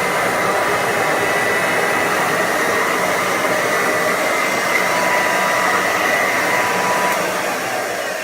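Hoover model 450 upright vacuum cleaner's 290-watt motor and beater bar running steadily, a whooshing hum with a high whine in it. Near the end the sound starts to die down.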